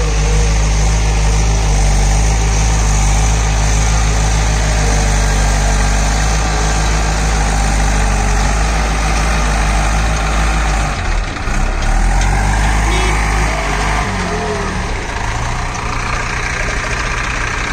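Bull Challenger CH76 backhoe loader's diesel engine running steadily while its front bucket pushes soil. Around eleven seconds in the engine note breaks and shifts, and after about fourteen seconds it runs with a weaker, rougher low end.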